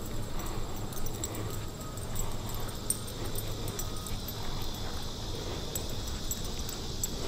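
Steady high droning of insects in summer woodland, with footsteps along a dirt trail.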